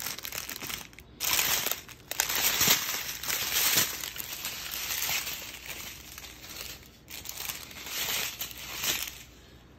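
Small plastic bags of diamond painting drills crinkling and rustling as they are handled, in uneven bursts.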